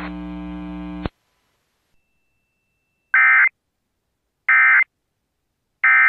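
A steady electrical hum that cuts off about a second in, then three short identical data-tone bursts about 1.4 seconds apart: the Emergency Alert System (SAME) end-of-message tones, signalling that the alert is over.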